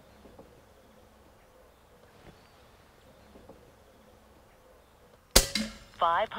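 A single sharp air rifle shot near the end, firing a heavy .22 pellet past a radar chronograph. About half a second later the chronograph app's voice starts calling out the velocity through the phone's small speaker.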